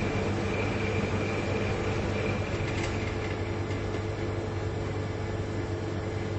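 Two large refrigerators running with a steady compressor hum, a low drone with several held tones over a soft hiss. A faint high whine fades out about halfway through.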